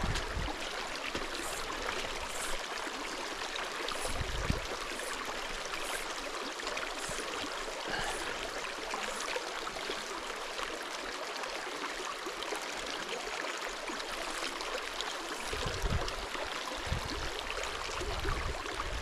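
Small brook trout stream flowing, a steady rush of running water, with a few dull low thumps.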